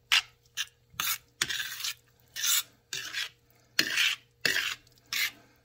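A metal utensil scraping against the bottom and sides of a stainless steel pan while stirring fettuccine in a butter and cream sauce. It is a series of short, uneven scrapes, about two a second.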